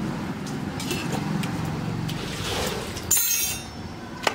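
A low rumble, then a short loud rushing noise about three seconds in. Near the end comes the first sharp slap of hands patting out roti dough between the palms.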